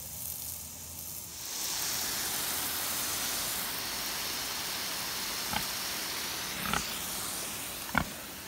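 Garden hose spraying water, starting about a second and a half in and hissing steadily, with three brief pig calls in the second half.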